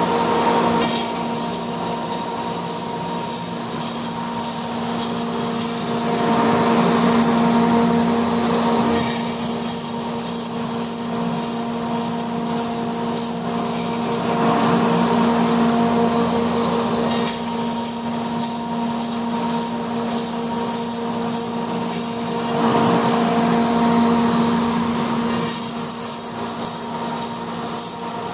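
Laguna Smartshop II CNC router cutting foam: the spindle runs with a steady whine while the bit's cutting noise swells and eases several times as the machine moves through its passes.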